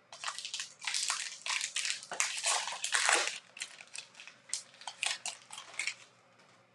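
A trading card pack's wrapper being torn open and crinkled by hand: a dense run of crackling rustles for about the first three seconds, then sparser single crinkles that stop shortly before the end.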